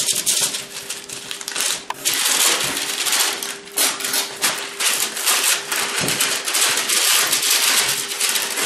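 Baking parchment paper being unrolled and handled: a dense crinkling and crackling with many small clicks, going on without pause.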